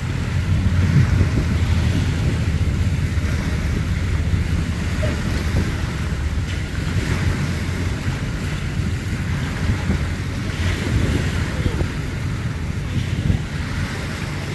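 Wind buffeting the microphone as a heavy low rumble, over choppy lake water lapping and splashing.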